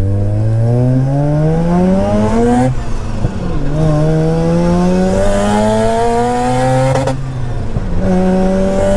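Single-turbo Mazda RX-7 FD3S's twin-rotor rotary engine accelerating through the gears, heard from inside the cabin. The revs climb, drop at a gear change about three seconds in, climb again, and drop at a second shift about seven seconds in before pulling again.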